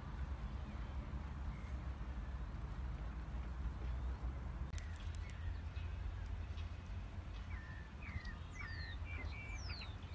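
Small birds chirping outdoors, a few short calls and quick falling whistles starting about halfway through, over a steady low rumble.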